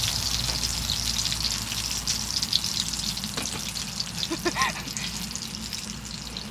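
Sauce-marinated pork belly sizzling and spitting in a hot pan: a dense, steady crackle of fine pops.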